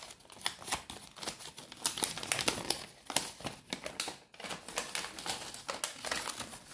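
Folded paper leaflet crinkling as it is handled and unfolded: an uneven run of short crackles.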